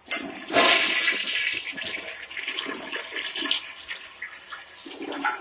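Newly installed toilet flushing: a sudden rush of water, loudest in the first second, that tails off over several seconds as the bowl empties and refills.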